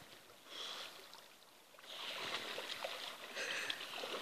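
Water splashing and sloshing around a swimmer in a shallow lake as he stops swimming and stands up to wade. A brief splash comes about half a second in, then a short lull, and steadier splashing from about two seconds on.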